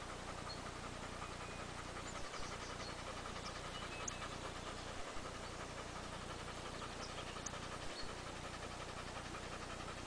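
Dog panting steadily, with a few faint high chirps in the background.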